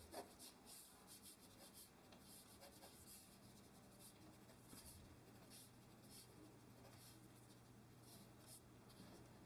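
Faint scratching of a graphite pencil sketching on drawing paper, in many short, irregular strokes.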